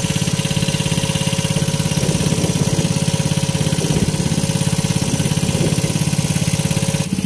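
A small engine aboard the fishing boat running steadily, with an even, rapid firing pulse.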